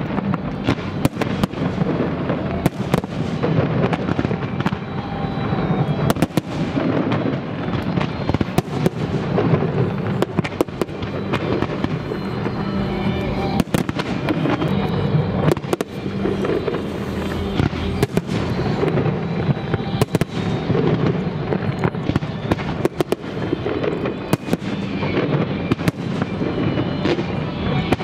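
Aerial fireworks firing and bursting in quick succession: a dense, irregular stream of sharp bangs and crackles, several a second. Music from the show's sound system plays continuously underneath.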